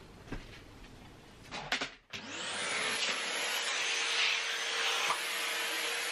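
Vacuum cleaner switched on about two seconds in, its motor spinning up with a rising whine and then running steadily with a loud hiss. A few clicks and knocks of handling come before it starts.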